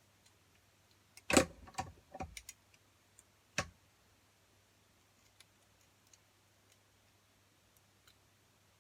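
Hand handling of copper wire and a metal item being wrapped: a loud knock about a second and a half in, a few quicker clicks and rattles after it, a sharp click a couple of seconds later, then a few faint scattered ticks.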